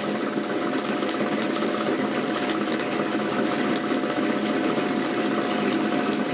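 Belt-driven air compressor and its electric motor running steadily on a variable frequency drive, with a rattling knock. The rattle comes from the steel mounting plate flexing and the misaligned pulley bouncing, not from the compressor itself knocking.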